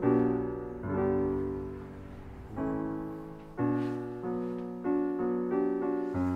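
Background music: slow piano, notes and chords struck about once a second and left to ring and fade.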